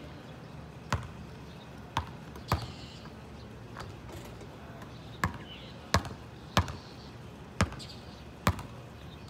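Basketball bouncing on an asphalt court: about eight sharp, unevenly spaced thuds.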